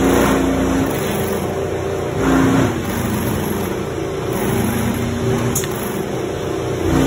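Industrial sewing machine stitching a leather boot panel in several short runs, each a brief motor hum, over steady workshop machinery noise.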